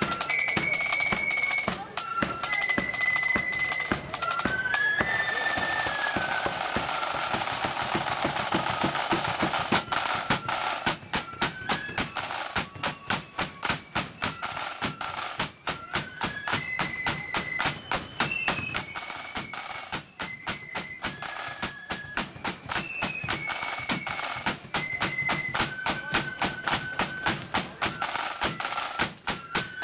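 Flute band playing a march: flutes carry a high stepping melody over rapid snare drumming and a bass drum beat.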